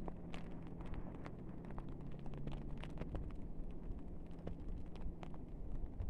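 Freezing rain ticking irregularly on surfaces close to the microphone, over a faint steady low hum that fades out near the end.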